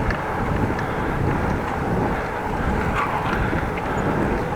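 Steady wind noise on the microphone of a moving bicycle.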